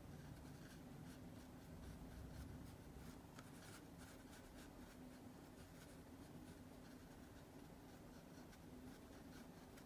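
Faint strokes of a small paintbrush dabbing watercolour paint onto textured watercolour paper, as light scattered scratches over quiet room tone with a low steady hum.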